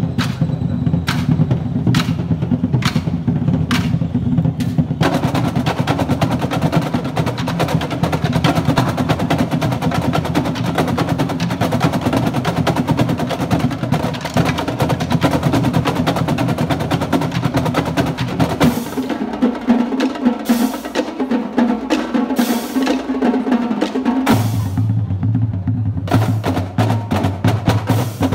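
Marching band drumline of snare drums, multi-tenor drums and bass drums playing a cadence. Separate accented hits come first, then dense fast rolling from about five seconds in. The low drums drop out for a few seconds near the end before coming back in.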